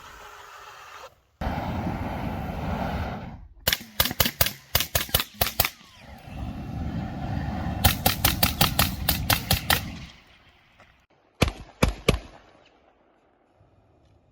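Exothermic Pulsefire UBF flamethrower firing in two bursts, each a steady rushing jet. Rapid runs of sharp, loud cracks, several a second, come near the end of each burst, and three more cracks follow about a second later.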